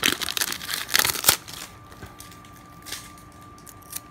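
Foil wrapper of a 1998 Bowman Chrome trading-card pack crinkling as it is pulled open and handled. The crinkling is densest over the first second and a half, with a sharp snap about a second in, then falls off to a few faint rustles.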